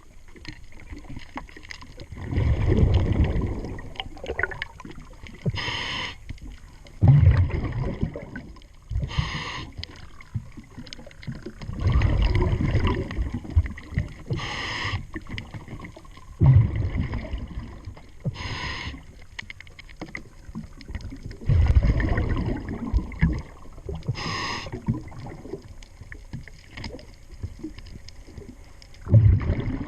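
Diver breathing through a scuba regulator underwater: a short hiss on each inhale, then a longer rumble of exhaled bubbles, repeating about every four to five seconds.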